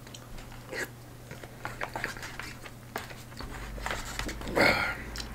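Eating sounds: a wooden spoon clicking and scraping in a plastic takeout bento tray while scooping mapo eggplant and rice, with soft chewing. A louder mouth noise, as he takes a mouthful, comes about four and a half seconds in.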